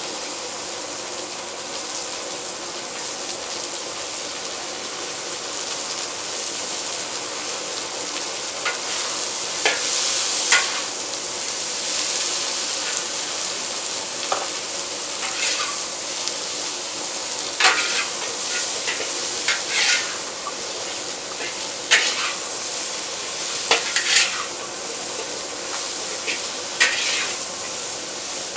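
Vegetables sizzling as they are stir-fried in a hand-hammered wok over a gas wok burner, with a metal ladle and tongs clacking and scraping against the wok every couple of seconds.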